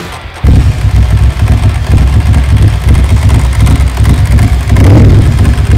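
Ducati Monster 1000 air-cooled L-twin engine starting about half a second in, then running with an uneven, pulsing idle and throttle blips, rising in a rev near the end. The engine has been reworked to be livelier while keeping its 1000 cc displacement.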